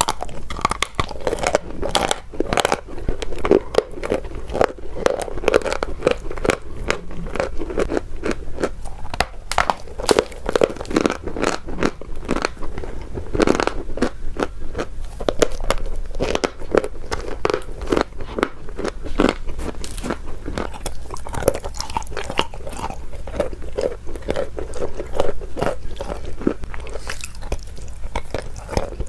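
Close-up crunching of edible chalk (sweet chalk) being bitten and chewed, a dense run of sharp crisp crunches several times a second.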